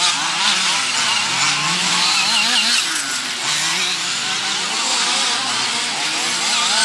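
Several small nitro engines of 1:8-scale RC buggies buzzing at high revs together, their pitch rising and falling over and over as the cars accelerate and brake through the corners.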